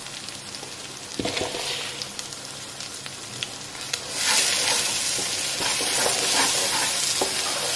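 Masala paste with green peas frying in a pan and being stirred with a spoon, with light clinks and scraping. About four seconds in the sizzling gets louder and stays steady.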